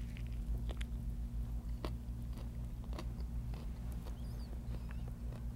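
A person chewing a bite of fresh spring roll with shrimp, noodles and raw carrot: faint, scattered crunches and mouth clicks over a steady low hum.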